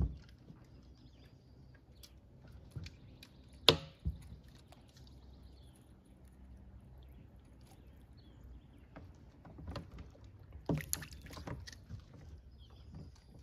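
Scattered small knocks and clicks from fishing gear being handled in a small boat, with one sharp knock about four seconds in and a flurry of knocks about eleven seconds in.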